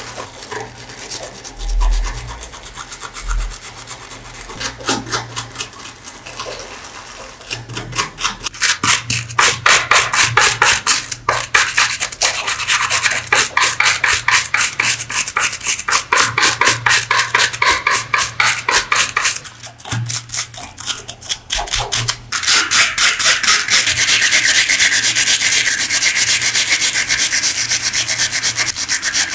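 Hand-held wire brush scrubbing rust off a small iron part in rapid back-and-forth strokes. The strokes are sparse and quieter at first, then grow loud and fast about eight seconds in, pause briefly near two-thirds of the way, and resume as near-continuous scrubbing.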